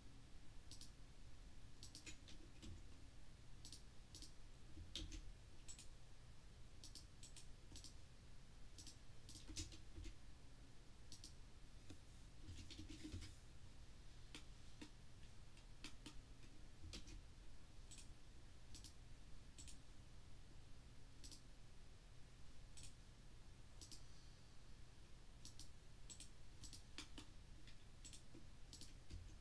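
Faint, irregular clicking of a computer mouse and keyboard, roughly two clicks a second, over a low steady hum.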